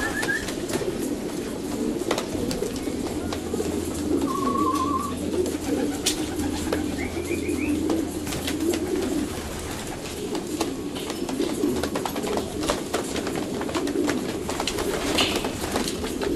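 A crowd of racing pigeons cooing together, a continuous wavering murmur, with scattered light clicks and taps. Two short high trills cut in, about four seconds in and again about seven seconds in.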